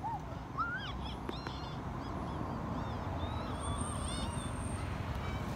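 Monkeys calling: a string of short squeaks and chirps that rise and fall in pitch, some higher than others, over a steady low rumble.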